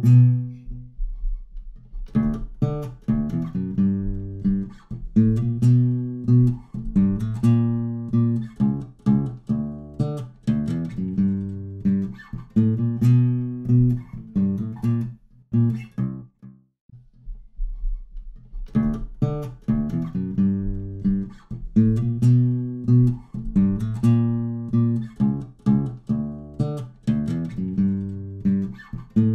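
Multitrack song of acoustic bass guitar and ukuleles played back through a binaural Dolby Atmos render, with the acoustic bass guitar part moving around and up over the head. The music drops away for about two seconds just past the middle, then comes back.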